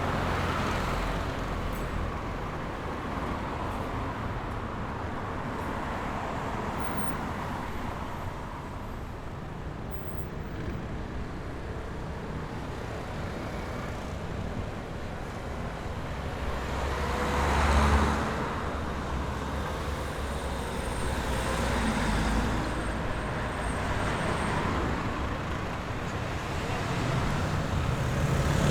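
City street traffic: a steady hum of cars with vehicles passing one after another. The loudest pass comes about two-thirds of the way through, and the traffic grows louder again at the very end.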